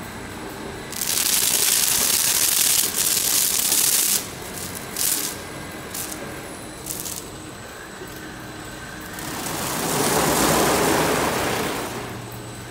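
Automatic car wash heard from inside the car: a loud hiss of spray striking the car for about three seconds, then a few short spray bursts, then the rotating foam brushes of the Washworld Profile MAX scrubbing across the windshield, swelling to a broad rush near the end.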